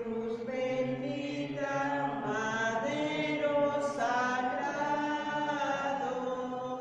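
A slow religious hymn, sung as one melodic line with long held notes.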